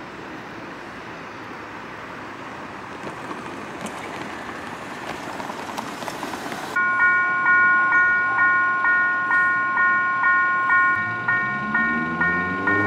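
A car passes over the level crossing, its noise building and fading. About seven seconds in, the crossing's electronic warning bell starts up, a repeating chime of several steady tones pulsing about twice a second. Near the end a low engine rumble comes in and rises in pitch.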